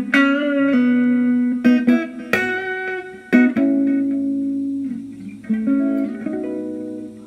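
Fender Mexican Stratocaster electric guitar playing a slow blues lead: single picked notes that ring on, with bends and vibrato. A run of quick notes comes in the middle, then longer held notes that fade near the end.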